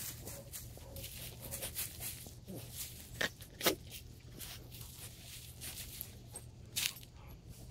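Dry pine straw and dead leaves crackling and rustling under a small Maltese dog as she rolls and wriggles on her back, with a few sharper crunches a little past the middle and again near the end.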